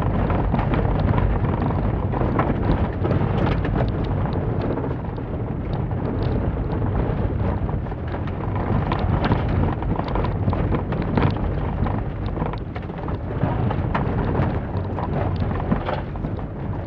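Inside the cabin of a 2006 Holden Barina driven hard on a loose-surface khanacross course: the engine under load over a continuous rumble from the tyres and floor, with frequent irregular clicks that fit gravel striking the underbody.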